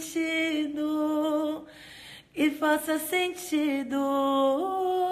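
A woman singing unaccompanied, holding long notes with vibrato and breaking off briefly about two seconds in.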